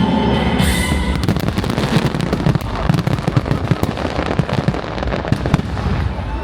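Firework finale barrage: a dense, continuous run of rapid bangs and crackles, with the show music dying away at the very start.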